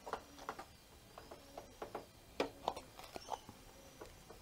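Cloth rag rubbing over the plastic engine housing of a lawnmower, making short irregular squeaks and scuffs.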